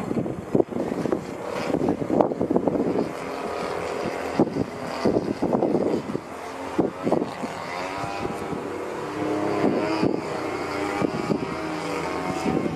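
The 26cc single-cylinder two-stroke gas engine of a Katana 63-inch fun-fly RC airplane runs in flight, its pitch rising and falling as the throttle changes through aerobatic manoeuvres. Uneven rushing surges sit over the engine note.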